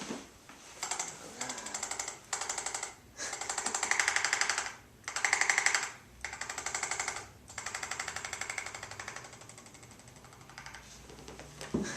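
Electric chiropractic adjusting instrument (an ArthroStim, as used in Koren Specific Technique) tapping rapidly in several bursts of one to two seconds with short pauses, delivering a chiropractic adjustment to an infant's spine.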